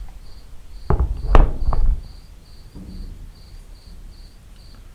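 A few loud knocks and clatters between one and two seconds in, as tools and parts are moved about in a search for a lost screwdriver. Under them a cricket chirps steadily, about twice a second.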